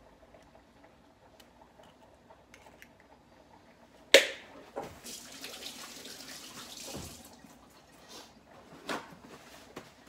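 An egg cracked sharply on the edge of a mixing bowl about four seconds in, followed by about three seconds of hiss like running water and a few light knocks.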